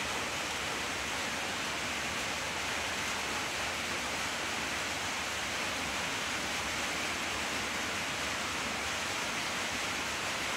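Steady, even hiss with no distinct crunches or other events standing out.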